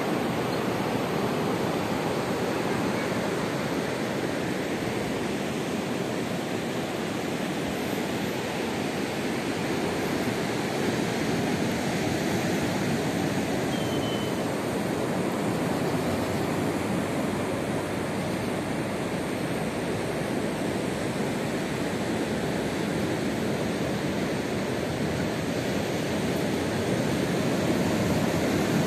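Ocean surf breaking and washing onto a sandy beach: a steady, even rush with no single wave standing out.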